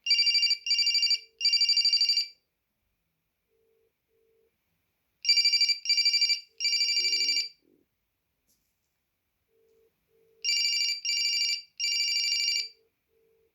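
Late-1990s Samsung SGH flip phone ringing with an incoming call: a buzzy electronic trill in groups of two short pulses and one longer one, repeating three times about every five seconds.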